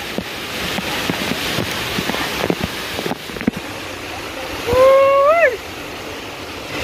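Waterfall water rushing and splashing close over the camera, with scattered sharp spatters. About five seconds in, a person's voice gives one short high call that rises and then drops off.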